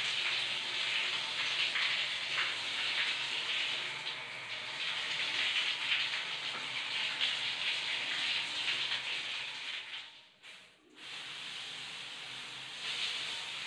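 Water gushing from an open wall tap and splashing onto a tiled floor, a steady hiss. It drops away briefly about ten seconds in, then comes back slightly quieter.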